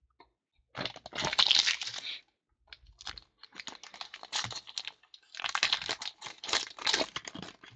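Foil trading-card pack being torn open and crinkled in the hands: two bouts of sharp crackling with small clicks and rustles between.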